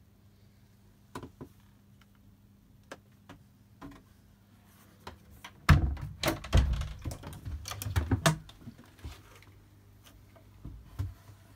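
Knocks and thumps of a wooden cabin door and joinery being handled and bumped, with scattered small clicks. A dense run of loud knocks comes about six to eight and a half seconds in.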